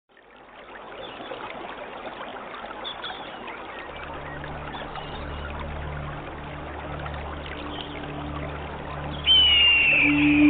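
Trickling stream water with faint bird chirps. A low steady musical drone comes in about four seconds in, and near the end a louder high whistled note sounds as the music swells.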